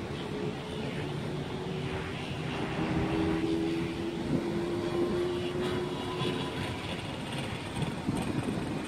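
Steady hiss of light rain and distant city traffic, with a low engine drone over it that fades out about six seconds in.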